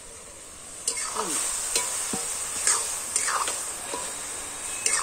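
Chopped cabbage sizzling as it stir-fries in a two-handled iron wok, with a steel spatula scraping and clacking against the pan as it is stirred. The sizzle and scraping start about a second in.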